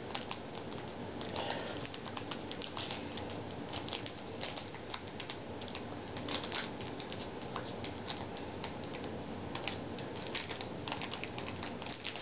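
Trading card pack packaging crinkling and rustling with a steady run of small crackles as hands pull and pick at it, trying to get a stubborn pack open.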